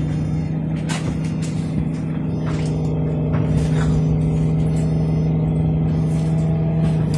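A bus's diesel engine idling, heard from inside the bus as a steady low hum, with a few short clicks or rattles.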